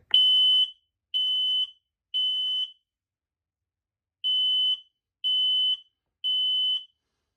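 Kidde P9030L photoelectric smoke alarm sounding under its test button: two rounds of three loud, high-pitched beeps with a longer pause between the rounds, the temporal-three alarm pattern.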